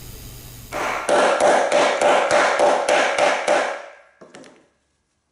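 A fast, loud run of sharp knocks, about six or seven a second for roughly three seconds, then two quieter knocks before it stops.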